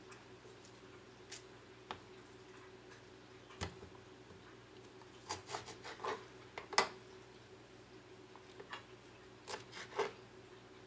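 Kitchen knife cutting an onion on a plastic cutting board: scattered knocks of the blade against the board, with a quick cluster of taps around the middle and two more near the end.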